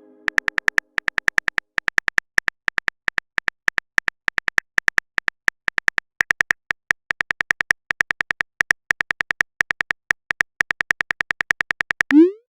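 Short, high electronic blips in quick irregular runs, several a second with brief pauses: a text-typing sound effect ticking along as dialogue appears.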